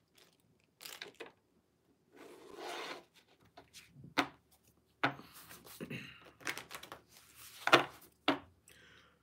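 A deck of reading cards shuffled by hand: rustling, scraping swishes of cards sliding against each other, broken by several sharp taps, the loudest near the middle and towards the end.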